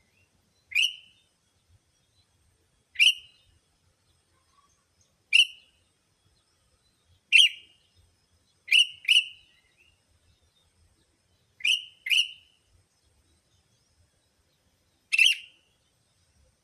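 Sooty-headed bulbul (kutilang) giving short, sharp single calls, sometimes in quick pairs, every one to three seconds: a lure call for attracting bulbuls.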